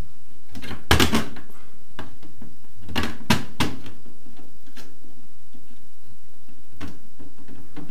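White plastic inspection hatch being pressed into its wall opening and its small door opened and shut: a few sharp plastic clicks and knocks, a quick cluster about a second in, three more around three seconds in, and one near the end.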